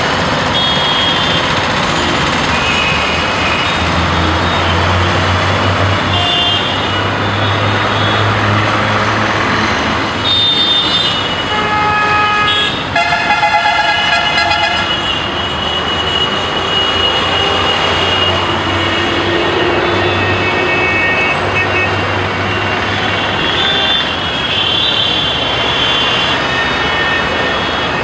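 Dense mixed road traffic of auto-rickshaws, motorcycles, cars and buses running through an intersection, with frequent short horn toots throughout. A rapid string of horn beeps sounds about halfway, and a low engine hum from a nearby vehicle swells and fades twice.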